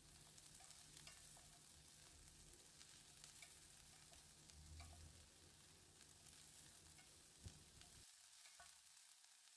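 Faint sizzle of cauliflower frying in butter in a pan, with scattered light clicks and a small knock about seven and a half seconds in.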